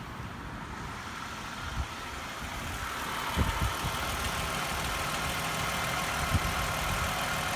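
Toyota Sienna minivan's engine idling steadily, getting a little louder about three seconds in, with a few short low thumps around the same time.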